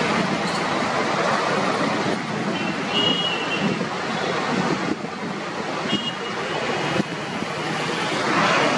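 Road traffic noise as a Scania coach rolls slowly up close, its engine and tyres in a steady rumble, with brief high squeaks twice.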